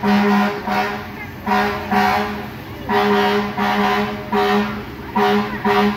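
Fire truck air horn sounding about nine short blasts of one steady note, many of them in quick pairs.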